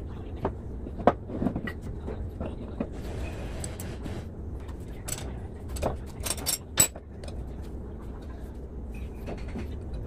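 Metal parts of a forklift hydraulic control valve clinking and knocking as the valve sections are handled, set down and fitted together on a workbench: a series of sharp, separate knocks over a steady low hum.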